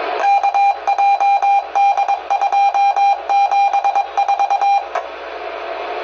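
Weather alert radios beeping for a Child Abduction Emergency alert: rapid pulses of one high tone in uneven clusters, which stop suddenly about five seconds in. A steady radio hiss follows.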